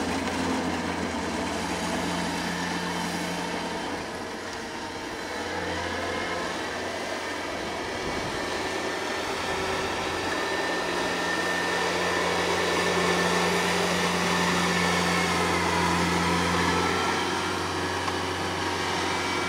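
Combine harvester's engine running steadily, a constant machine drone that eases slightly about four seconds in and grows a little louder in the second half.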